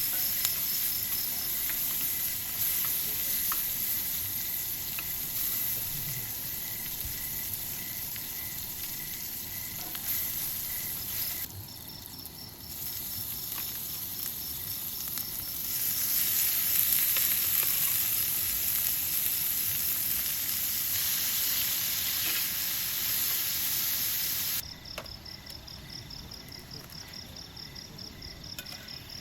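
A steady sizzling hiss, sitting high in pitch, with crickets chirping behind it. The hiss dips briefly part way through and then cuts off suddenly near the end, leaving only the crickets.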